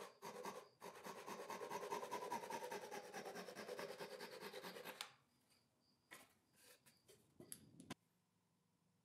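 Flush-cut pull saw trimming a wooden dowel flush with the surface in quick, even strokes. The tone drops slowly as the cut goes deeper, and the sawing stops suddenly about five seconds in. A few faint clicks follow.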